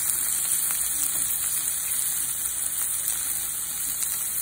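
Strip steak frying in olive oil in a nonstick pan with chopped onions and peppers: a steady sizzling hiss with a few small pops.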